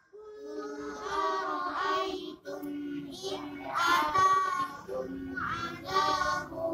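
A child's voice reciting Qur'anic verses in a melodic chant, with held notes that glide up and down in pitch and short breaks between phrases.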